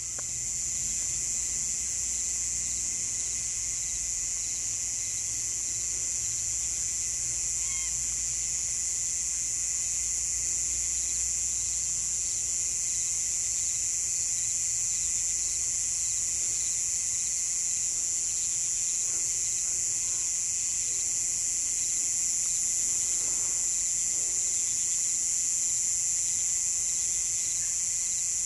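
Steady high-pitched chorus of insects trilling without a break, with a fainter pulsing call under it in the first half and a few faint low calls in the second half.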